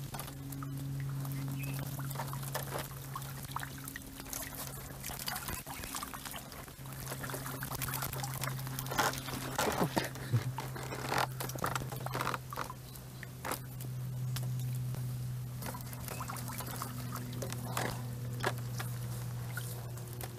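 Water trickling and pouring off a raised bamboo-framed khora lift net. Scattered taps and splashes come thickest around the middle, over a steady low hum.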